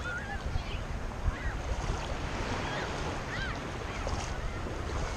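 Wind buffeting the microphone over the steady wash of shallow surf lapping around ankle-deep water.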